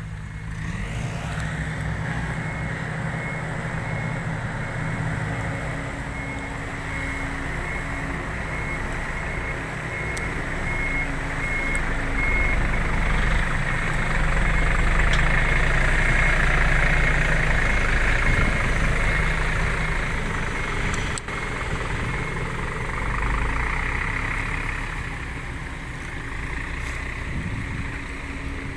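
Diesel engine of a six-wheel dump truck running steadily, growing louder through the middle. A high beep repeats rapidly for about the first twelve seconds.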